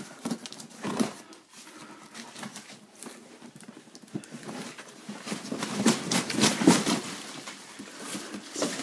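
A paper-wrapped cardboard parcel being torn open and handled: paper and cardboard rustling and crackling, with the loudest burst of tearing and crinkling about six to seven seconds in.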